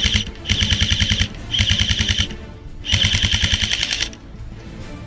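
Airsoft rifle firing on full auto in short bursts, a rapid rattle of about a dozen shots a second. Four bursts, the last and longest lasting about a second.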